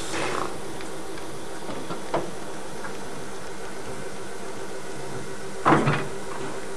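Harz narrow-gauge steam tank locomotive moving off slowly, giving three widely spaced exhaust chuffs (the last and loudest near the end) over a steady hiss and hum.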